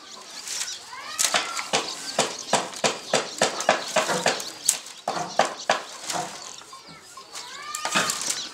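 Bamboo strips clicking and rattling against one another as they are woven into a basket by hand, in quick, irregular snaps about three or four a second.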